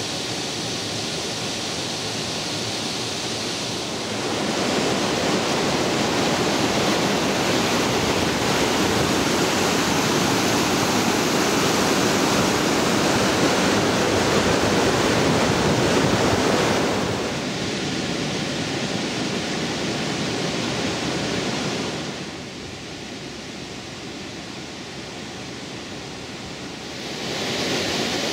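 Steady rush of a mountain stream cascading over boulders. It grows louder about four seconds in, drops back in two steps after about 17 and 22 seconds, and rises again near the end.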